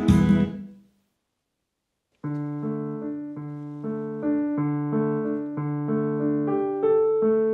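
Background music fades out in the first second, then after a short silence a white Yamaha digital piano is played by hand from about two seconds in: a simple repeating melody over a low accompaniment.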